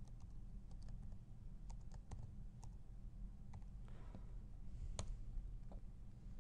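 Computer keyboard typing: a scatter of light key clicks as a short folder name is typed in, with one louder click about five seconds in. A low steady hum lies underneath.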